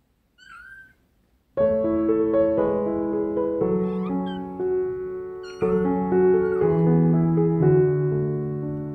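A kitten meows once, a short call that rises and falls. About a second and a half in, piano music starts and carries on, much louder than the meow, with a couple more short meows heard over it.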